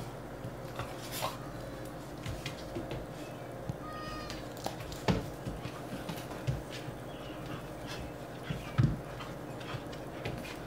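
A tabby cat and a puppy in a standoff: a short, high cry about four seconds in, amid light scuffling and tapping of the puppy's paws on the tiled floor, with a thump near the end.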